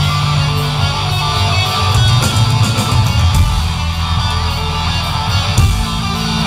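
Loud hard rock music driven by electric guitar.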